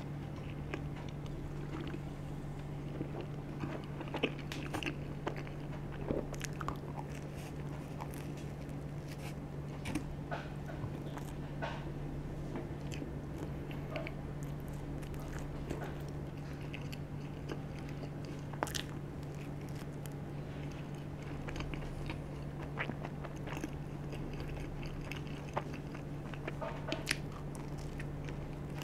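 Close-up biting and chewing of a charcoal-dough pizza crust: scattered crunchy clicks and crackles of the crust breaking between the teeth, over a steady low hum.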